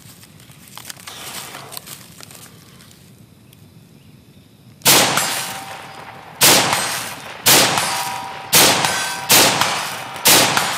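Six shots from a sand-fouled JP-15 AR-15 rifle, fired singly about a second apart in the second half, each a sharp crack with a short echoing tail. The rifle keeps firing with sand packed into its action.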